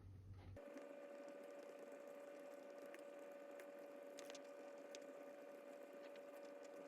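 Near silence: faint room tone with a thin steady hum and a few soft ticks.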